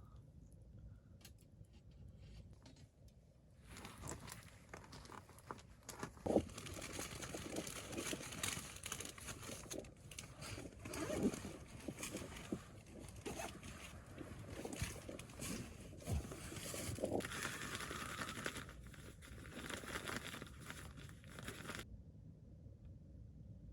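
Rustling and crinkling handling noise with scattered small knocks, starting about four seconds in and cutting off abruptly near the end.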